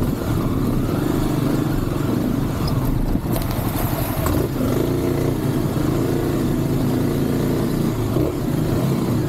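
Kawasaki KLX 300 dirt bike's single-cylinder four-stroke engine running steadily at low trail speed, its pitch shifting a little with the throttle. A few short clatters of the bike over rocks come around three to four seconds in.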